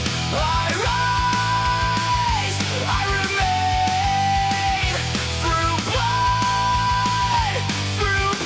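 Heavy rock instrumental passage without vocals: a lead melody of long held, sliding notes over a dense band of drums, bass and heavy guitars. The lead phrase repeats about halfway through.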